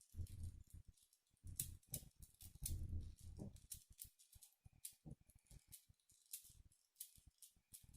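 A tiny 2 cm YG Tiny 3x3 cube being turned quickly in a speedsolve: faint, irregular clicking and clacking of its small plastic layers, with a few soft handling thumps in the first half.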